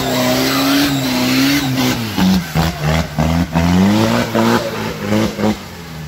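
Diesel engine of a Troller 4x4 working hard in deep mud, its wheels spinning and throwing mud. After about two seconds the revs surge up and drop back again and again, several times a second, as the throttle is worked, then the sound fades near the end.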